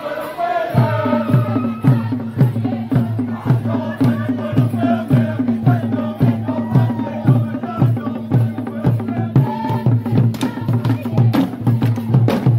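Acholi bwola dance drums playing a steady beat of about two strokes a second, starting about a second in, with voices singing and chanting over them at the start. Sharp clicking strikes join near the end.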